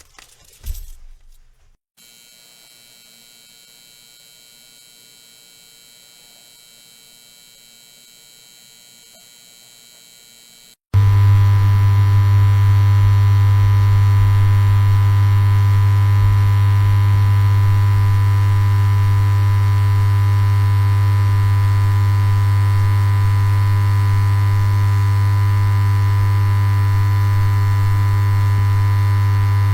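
Neon light buzzing with electrical mains hum. A few sharp clicks in the first two seconds give way to a faint steady hum. About eleven seconds in, a much louder low hum with many overtones cuts in abruptly and holds steady.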